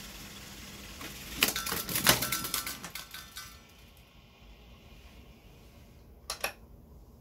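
Akai GX-210D reel-to-reel tape deck fast-winding with a steady hiss. About a second and a half in, the tape end runs off the reel and the loose tail flaps and clatters rapidly against the machine for about two seconds as the reel spins down. Two sharp clicks come near the end.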